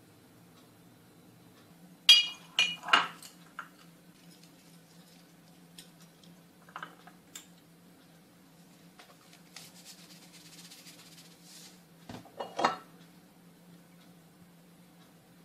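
Kitchen dishes clinking as a glass baking dish is handled on the counter: a cluster of sharp clinks about two seconds in, a few light taps, and another cluster near the end, over a faint steady hum.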